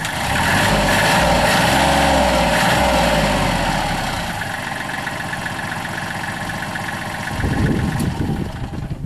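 Kubota L35 compact tractor loader backhoe's diesel engine running. Its pitch shifts and it is loudest in the first few seconds, then it settles to a lower, steadier level, with a brief louder surge near the end.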